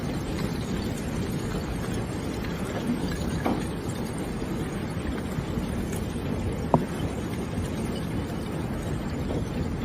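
A steady low rushing noise, with two brief sharp clicks, one about three and a half seconds in and one near seven seconds.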